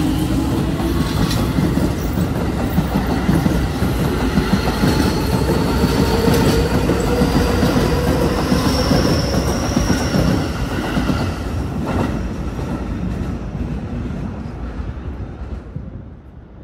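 Keio Line electric train running past along the platform track: a steady rumble of wheels on rail with the clickety-clack of rail joints and a brief high squeal about nine seconds in. The sound fades away over the last few seconds.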